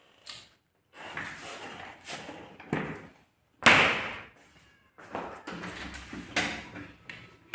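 Irregular knocking and rustling noises, with one loud sudden thump about three and a half seconds in.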